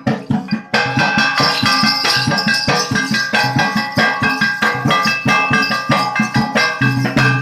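Live Danda Nacha folk accompaniment: a drum beaten in a fast, even rhythm of about three to four strokes a second, with jingling, ringing metal percussion over it.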